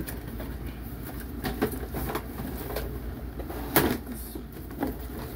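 Cardboard toy box and plastic packaging being handled as a toy piece is worked free, a scatter of knocks and rustles with the loudest knock nearly four seconds in, over a steady low hum.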